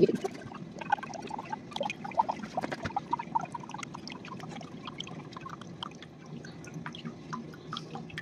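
Coconut water dripping and trickling out of a husked coconut into a stainless steel mug, in quick irregular drops that thin out towards the end.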